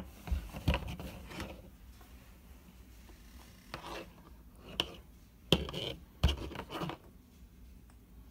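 Handling noise: a cord rubbing and scraping with a few light knocks, scattered, with a quieter stretch in the middle.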